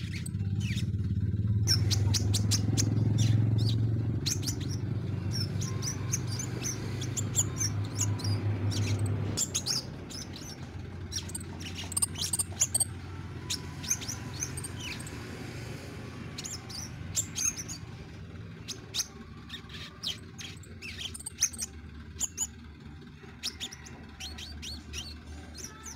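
Caged crimson sunbird singing: quick runs of high, thin chirps and twitters, repeated with short pauses. A low steady hum runs underneath for about the first nine seconds and is the loudest thing then.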